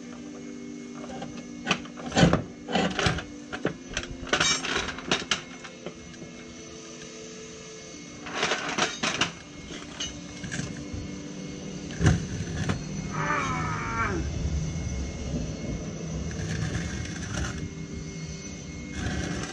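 Metal knocks and clanks of a manual transmission being worked loose and lowered on a floor jack, in clusters about two to five seconds in, around eight to nine seconds and at twelve seconds, with a drawn-out falling squeak around thirteen seconds. Soft background music with held notes runs underneath.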